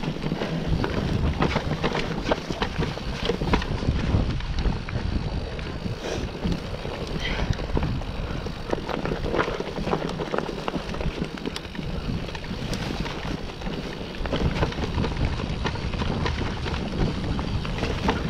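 Electric mountain bike riding down a dry dirt forest trail: tyres rumbling over the ground with frequent knocks and rattles from the bike, and wind on the microphone.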